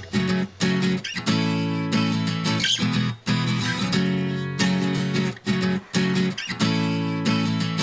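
Background music: strummed guitar chords, with brief breaks between phrases.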